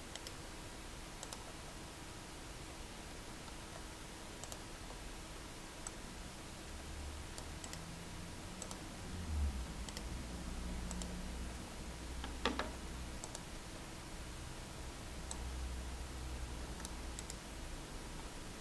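Sparse computer mouse clicks, one at a time, over a faint steady hum, with a soft low thump about nine seconds in.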